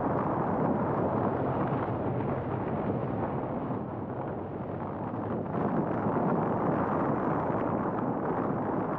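Wind rushing over the microphone of a motorcycle on the move, with the BMW R1200R's engine running underneath. The rush eases a little around the middle and picks up again just after.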